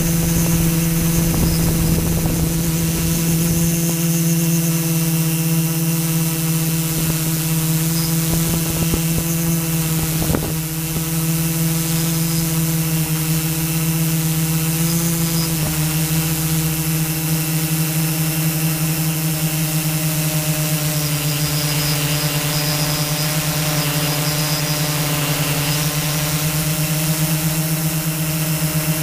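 A small camera drone's motors and propellers whine steadily, close to the onboard microphone. The pitch shifts slightly now and then as it manoeuvres, and there is one brief click about ten seconds in.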